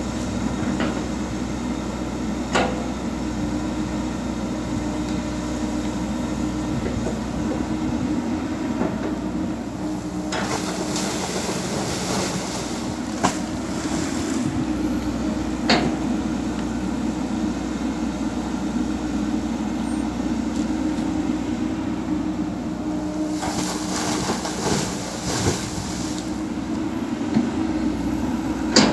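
Komatsu PC200 hydraulic excavator's diesel engine running steadily under working load as it digs and dumps soil, with a few sharp metallic knocks from the bucket and boom and two spells of hissing rush.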